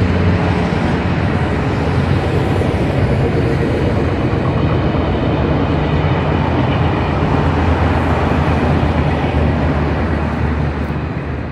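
Passenger train running along the line: a steady low drone with rolling noise from the rails, falling away near the end.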